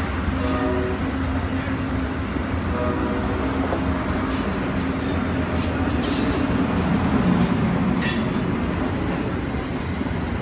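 Amtrak Silver Meteor stainless-steel passenger cars rolling past close by, with a steady rumble of steel wheels on the rails. There are brief wheel squeals in the first few seconds and short hissing swishes as cars go by in the middle.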